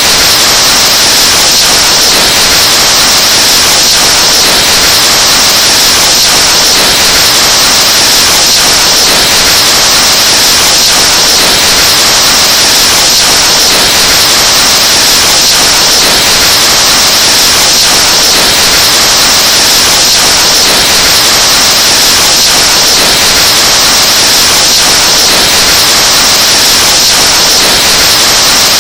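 Breath blown into a microphone and boosted until it clips: a loud, unbroken wash of distorted noise with a strong hiss.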